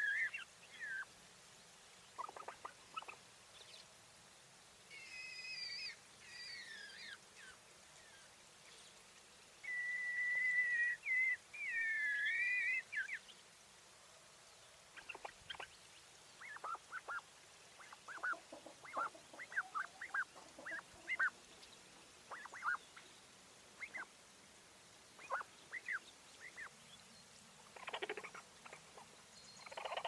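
English White Coturnix quail hen calling: long wavering, warbling calls in the first half, then a scattered series of short, quick chirps.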